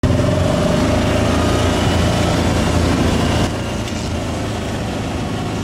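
Truck engines running close by, loud and low-pitched. About three and a half seconds in, the sound cuts to a somewhat quieter engine noise.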